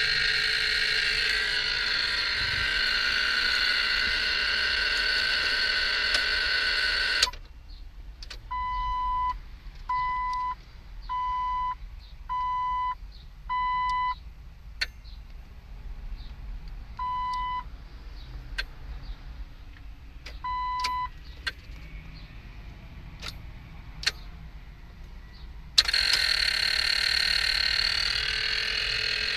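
Jeep Wrangler warning chime beeping at one steady pitch, five short beeps about a second and a half apart and then two more further apart, with sharp single clicks from the dash in between. A steady loud rushing noise cuts off suddenly about seven seconds in and comes back near the end. The Jeep won't start, and the owner suspects the clicking comes from a relay or the brake-warning circuit.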